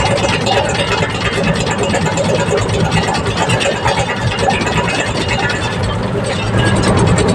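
Compact excavator engine running steadily.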